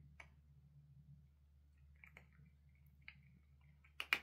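A cat biting and handling a dried matatabi (silvervine) fruit: scattered soft clicks and squishy sounds, then two sharp clicks in quick succession near the end.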